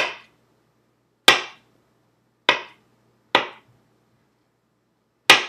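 Knife chopping a banana into slices: five sharp, separate knocks, irregularly about a second apart, as the blade strikes through onto the hard surface underneath.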